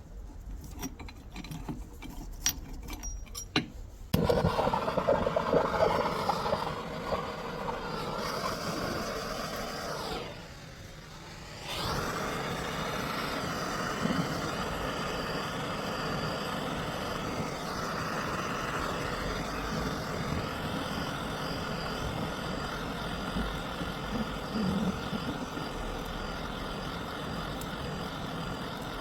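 A few light clicks, then a steady mechanical running noise that starts abruptly about four seconds in and keeps going, falling away briefly a little past ten seconds before picking up again.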